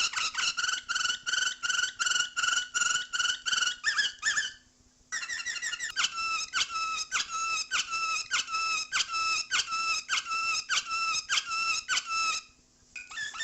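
Canary singing, repeating one short whistled note about four times a second in long runs, with brief pauses about four and a half seconds in and again near the end.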